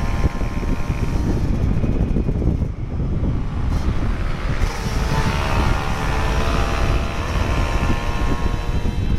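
Motorcycle engine running under way, with heavy wind rumble on the microphone.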